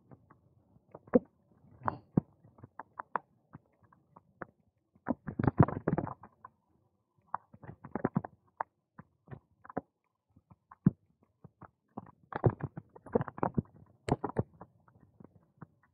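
Bicycle rattling and knocking as it rolls over the joints of a paving-slab path: irregular clicks and knocks, bunching into dense clatters about five seconds in and again about twelve seconds in.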